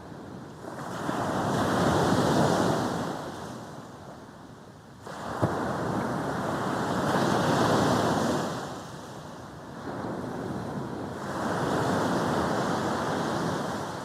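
Sea waves breaking on a beach: three surges of surf about every four to five seconds, each swelling and then washing back, with light wind on the microphone.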